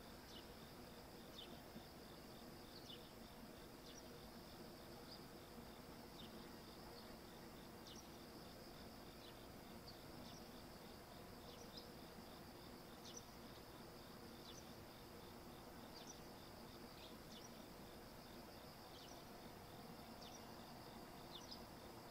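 Faint insect chorus: a steady high-pitched cricket-like trill with short chirps repeating about every second, over a low steady hum.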